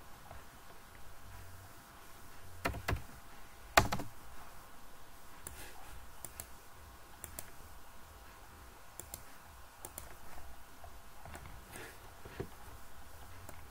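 Scattered clicks of a computer mouse and keyboard, a dozen or so single clicks and taps with the loudest about four seconds in, over a faint steady low hum.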